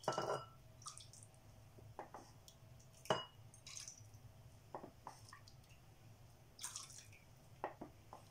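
Wooden spoon scooping a warm melted-butter, milk and water mixture from a metal saucepan into a small bowl: a few separate drips and small splashes with light knocks of the spoon, the sharpest about three seconds in.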